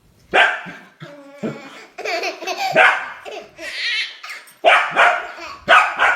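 A dog barking repeatedly, about eight loud barks at an uneven pace, some of them drawn out.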